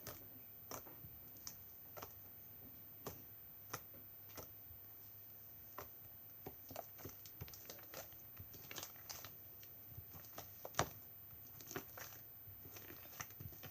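Homemade glossy slime being handled: irregular sticky clicks and small pops, a few of them louder, as it is squeezed and stretched.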